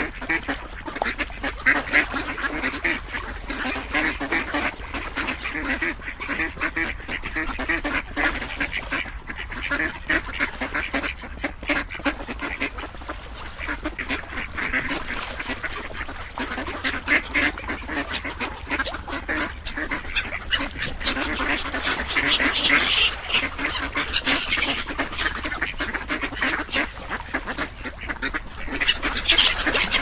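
A flock of ducks quacking continuously, with many calls overlapping.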